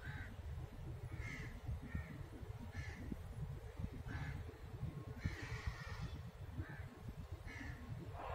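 Birds calling outdoors in short calls about once a second, with one longer, louder call about five seconds in, over a constant low rumble.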